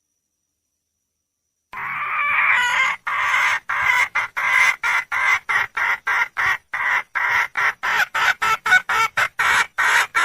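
Wild junglefowl hen calling for a mate. About two seconds in she gives one longer call, then a fast run of short clucking notes, about three a second, that goes on to the end.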